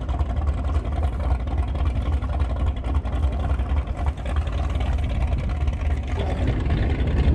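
Wind buffeting the microphone: a steady, loud low rumble that rises and falls unevenly.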